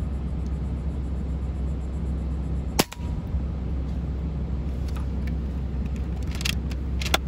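A single sharp crack of a PCP air rifle shot about three seconds in, over a steady low rumble of wind on the microphone. A few faint clicks follow near the end.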